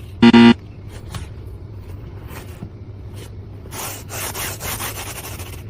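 Rubber pet grooming glove rubbing and brushing in a run of quick scraping strokes through the second half. A short, loud pitched sound comes just after the start.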